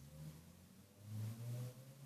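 A faint low-pitched hum, swelling slightly about a second in.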